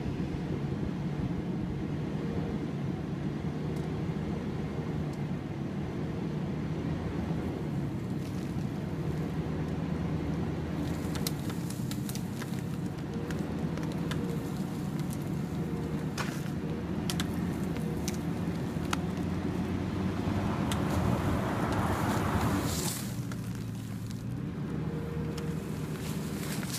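Truck engine running steadily as it slowly pulls a deer's hide off the hanging carcass, with sharp crackling pops as the hide tears away from the meat. About three-quarters through the engine grows louder for a few seconds, then drops back suddenly.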